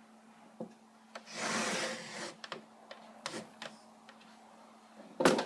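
Plastic doll toys and props being handled and moved: scattered light clicks and taps, with a rubbing, sliding sound about a second and a half in and a louder knock near the end.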